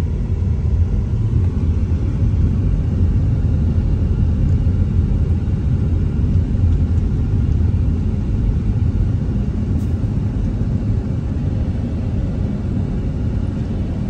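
Steady low rumble inside a moving Toyota car's cabin: engine and tyre noise.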